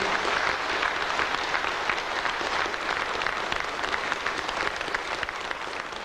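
Congregation applauding, dense, steady clapping that eases slightly near the end.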